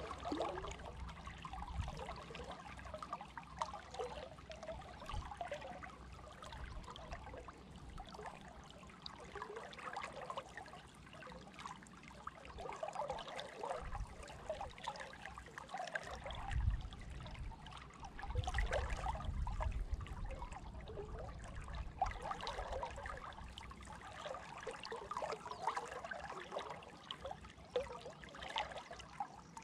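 River water lapping and trickling close by, with many small irregular gurgles around a wading angler. A few low rumbles come in about halfway through.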